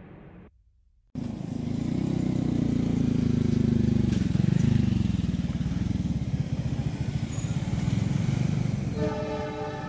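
Diesel locomotive engines running as a train drawn by two locomotives approaches out of sight: a loud, low, throbbing rumble that starts suddenly about a second in. About nine seconds in, the locomotive horn begins to sound with a steady chord.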